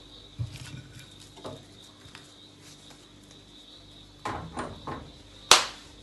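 Kitchen clatter during pancake cooking: a few scattered knocks of utensils and pans, a short run of knocks about four seconds in, and one loud sharp clack near the end.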